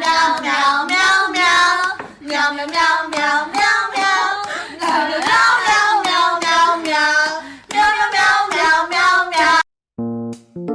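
A high-pitched voice singing a song in short syllables with sliding pitch, which cuts off suddenly near the end.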